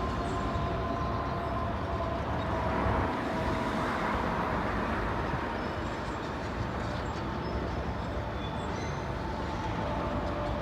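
Steady road traffic and machinery noise, swelling briefly midway, with a faint steady whine early on.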